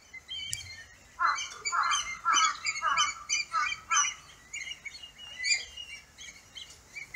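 Many black kites calling over one another, short falling calls in a busy run from about a second in, thinning out after about four seconds.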